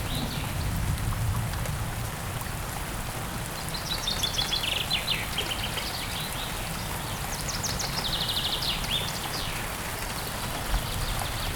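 Steady rain with birds calling: two bouts of rapid repeated high notes, one about four seconds in and another about eight seconds in.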